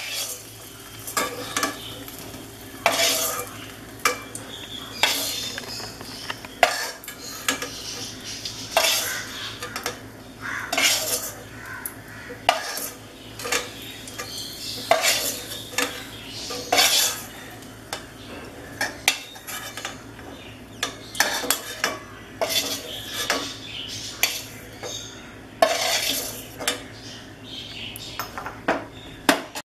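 A metal spoon scraping and clinking against a pan, scooping fried raisins out of hot ghee, in irregular strokes every second or two, with a low sizzle from the ghee underneath.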